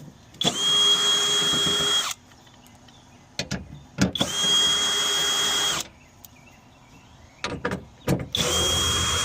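Power drill running in three steady bursts of about two seconds each, with short clicks between them, as it backs out the 10 mm screws holding a window regulator and motor inside a car door.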